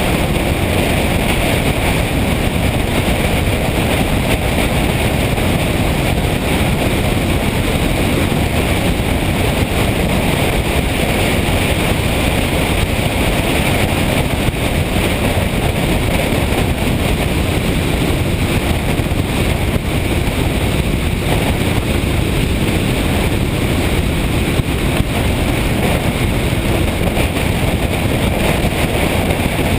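Motorcycle on the move: a steady rush of wind on the microphone mixed with engine and road noise, even throughout.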